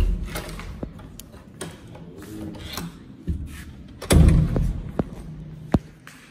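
A door's metal lever handle and latch clicking and rattling as the door is opened, with knocks and thuds from the door and handling. The loudest thuds come at the start and about four seconds in, and a sharp click comes near the end.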